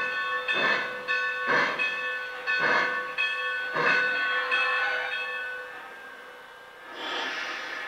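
Lionel O-gauge model steam locomotive's onboard sound system: chuffs about once a second slow and stop as the engine comes to a halt, with its bell ringing. A hiss of let-off steam starts near the end.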